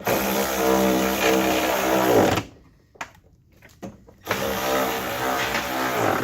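Power drill running bumper fastening nuts on, in two runs of about two seconds each; the motor's pitch drops as the first run stops.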